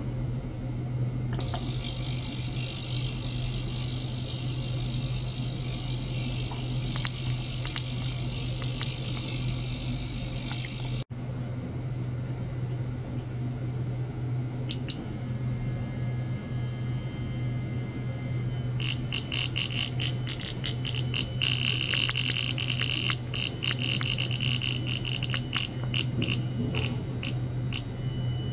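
Small ultrasonic cleaner running with a steady low hum, and a high hiss over the first third. From about two-thirds of the way in, a fast crackling rattle of clicks joins it while a toothbrush is held in the bath water.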